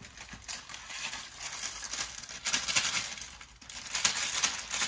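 Packaging of a rolled refrigerated pie crust crinkling and crackling as it is pulled open by hand. The crackling comes in bursts, the strongest about halfway through and again near the end.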